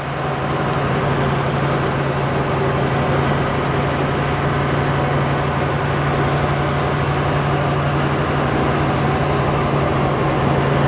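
Loaded truck's diesel engine running steadily at road speed, heard from inside the cab as an even low hum with tyre and road noise.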